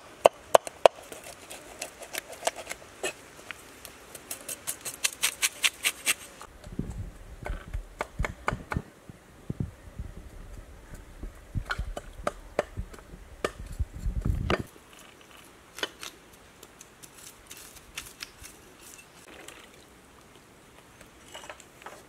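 Knife blades scraping scales off fish on a wooden chopping board: a long run of sharp scraping strokes, quickest at about five a second near the start, thinning to scattered scrapes and knocks later. A low rumble is heard for several seconds in the middle.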